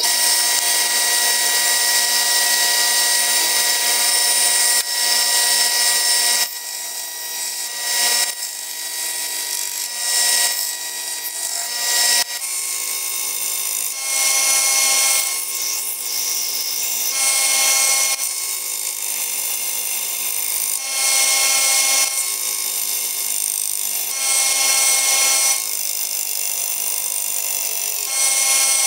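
Benchtop belt sander running with a steady motor whine while the steel blade of an antique meat cleaver is pressed onto the moving sanding belt. The grinding hiss swells and eases with each pass, about every two to three seconds.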